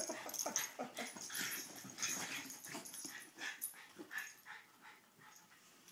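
Two small dogs play-fighting, making a quick run of short, irregular dog noises that die away over the last second or so.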